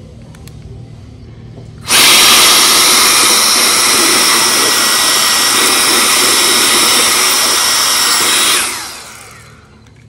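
Gale Force S mini jet fan, a battery-powered high-speed blower rated at about 120,000 rpm, running with its vacuum attachment and sucking up small debris. It switches on suddenly about two seconds in with a loud, steady rush of air and a high whine, then is switched off near the end and winds down over about a second.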